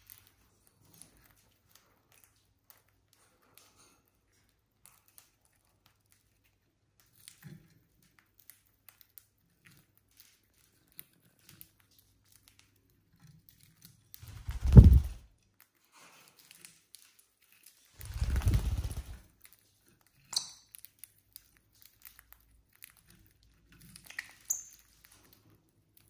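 Lovebirds cracking and chewing seeds: scattered small clicks and crunches, with two louder low bumps about halfway through and two short high notes near the end.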